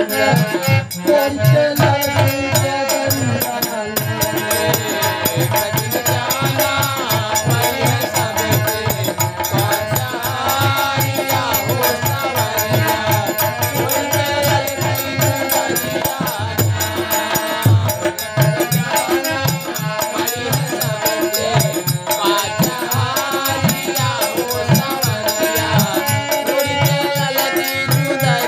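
Instrumental passage of Bhojpuri nirgun folk music: melodic instruments playing over a steady drum beat.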